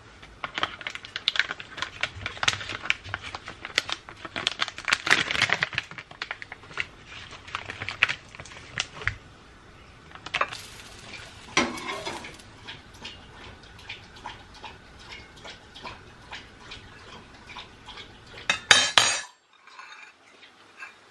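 Kitchen dishes and utensils clinking and knocking while a sandwich is put together: many sharp clicks, busy at first and then sparser, with a louder burst of clatter near the end that cuts off suddenly.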